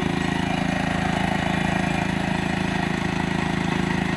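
ATV engine idling steadily at an even, unchanging speed.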